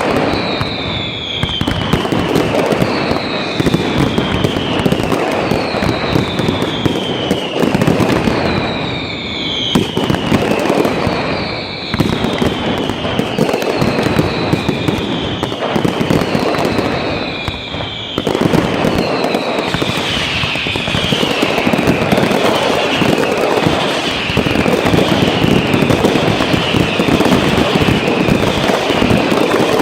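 Fireworks display: dense, loud crackling and banging with repeated falling whistles, about one every two seconds, coming faster, about one a second, from around two-thirds of the way through.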